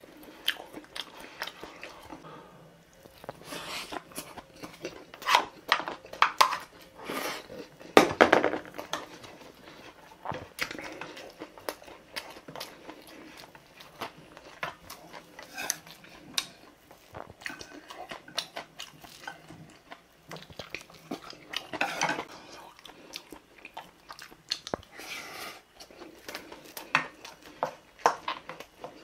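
Wooden spoon scraping and clinking against a stainless steel bowl as fried rice is stirred and scooped up, in irregular bursts, with chewing between the spoonfuls.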